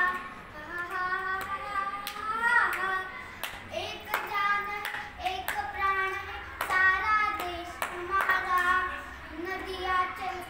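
A boy singing a Hindi patriotic song unaccompanied, in long held, wavering notes, with sharp claps every second or so.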